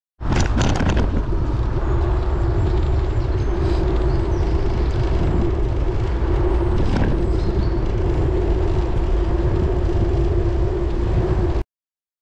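Steady wind rumble and road noise on the microphone of a bicycle-mounted camera while riding, with a steady hum underneath; it cuts off suddenly near the end.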